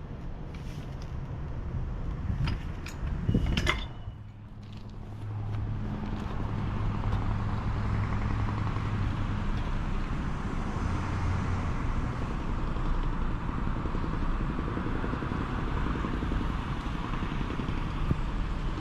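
Small air compressor running steadily, pumping air into a gas line to pressurise it for a pressure test. A few sharp clicks come first, and the steady run starts about five seconds in.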